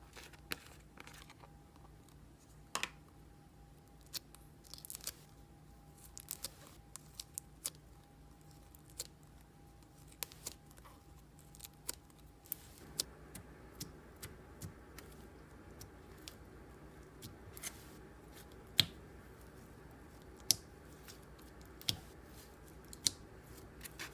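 Clear glitter slime being handled, giving irregular sharp clicks and pops, with a few louder pops in the second half.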